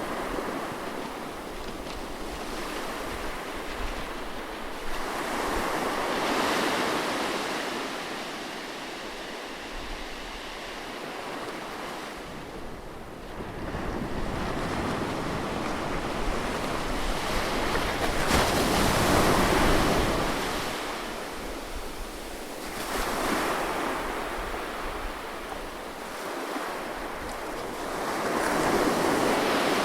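Ocean waves breaking and washing up a beach, the surf swelling and falling in surges every several seconds, with some wind buffeting the microphone.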